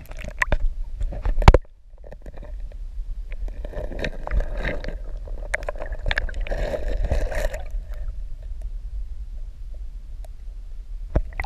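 Muffled underwater sound of stream water moving around a submerged camera: a steady low rumble and gurgling, with clicks and knocks in the first second and a half, the loudest just before it briefly drops.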